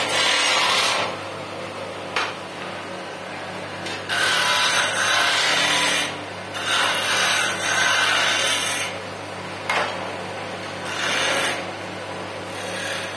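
Wood lathe running with a steady hum while a hand-held tool is pressed against the spinning wooden blank in repeated passes, each a loud scraping hiss lasting one to two seconds, with a couple of short clicks between them.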